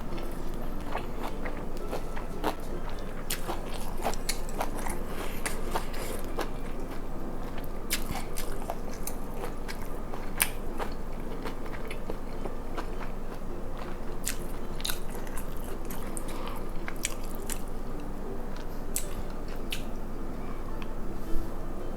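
Close-miked chewing and biting: a person eating, with many small sharp crunches and wet mouth clicks, and one louder click near the end.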